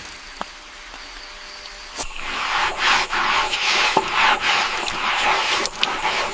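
Rough, uneven scraping strokes, like hand work on a surface, starting about two seconds in, with a few sharp clicks among them.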